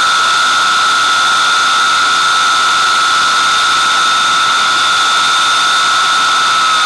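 Avro Vulcan's Rolls-Royce Olympus turbojets running, a loud steady rush with a high, constant whine over it. Near the end the whine starts to drop in pitch.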